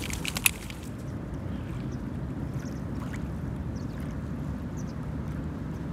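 A steady low engine rumble, with a few sharp clicks about half a second in.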